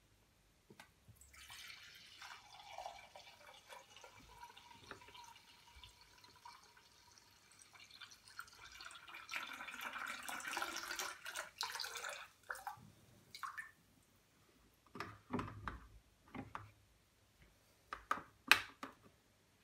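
Ginger beer running from a siphon tube into a glass bottle: a faint trickling, splashing stream that starts about a second in and stops at about twelve seconds. A few short knocks follow near the end.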